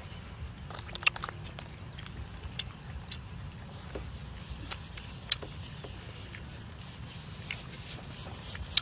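Low, steady wind rumble on the microphone, with a handful of sharp clicks and taps scattered through it.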